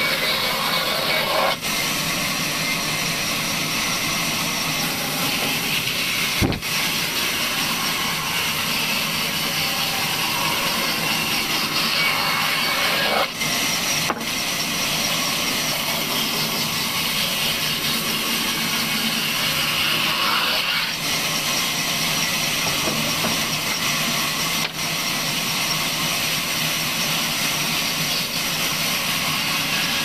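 Large band saw running and ripping an old weathered wooden beam lengthwise, a steady loud sawing noise with a single sharp knock about six and a half seconds in.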